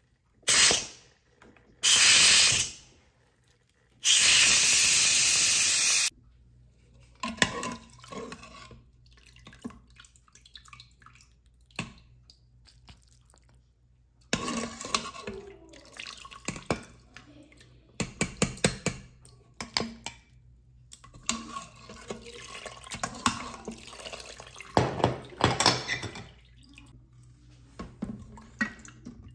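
Kitchen tap run in three short bursts of water, the last about two seconds long, followed by repeated clinks and clatter of dishes and utensils being handled at the sink.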